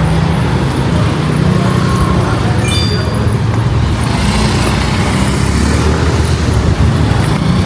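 Motor vehicle engine running with a steady low rumble, amid road traffic noise. A brief high chirp sounds about three seconds in.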